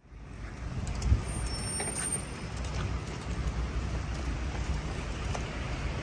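Road traffic ambience from a queue of slow or stationary cars: a steady low engine rumble under a hiss of wet road noise, fading in at the start. There is a loud thump about a second in, and a brief high whine just after it.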